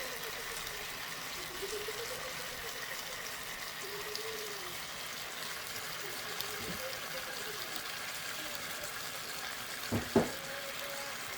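Shrimp and vegetable sauce sizzling and simmering steadily in a pot, with two quick knocks near the end.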